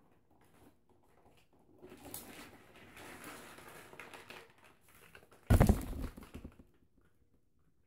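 Rustling and a soft patter while acrylic paint is poured and dripped. About five and a half seconds in comes a sudden loud knock with a short rattle after it.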